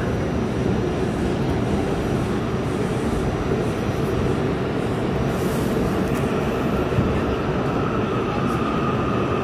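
Subway train running past at speed, a steady rumble of wheels on rails. A thin high whine comes in about seven seconds in.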